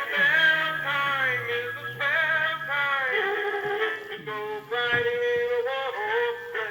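Animated Christmas walking penguin toy playing its built-in song, a synthetic-sounding voice singing a Christmas tune over music, through the toy's small speaker.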